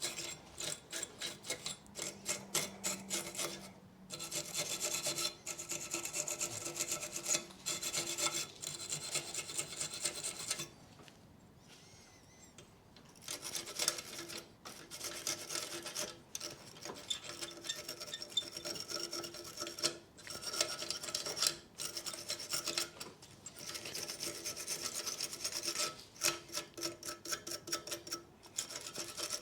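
Wire brush scrubbing dusty metal brake pad anti-rattle shims in quick repeated back-and-forth strokes, with a pause of about two seconds near the middle.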